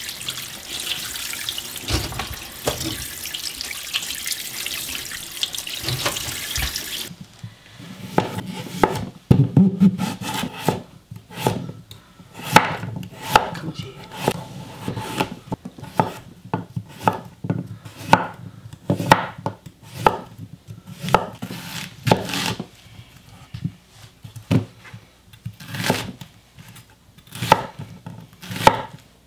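Tap water running over blanched chicken pieces in a metal colander for about seven seconds. Then a kitchen knife chops sweet potato and onion on a wooden cutting board, single knocks about a second apart.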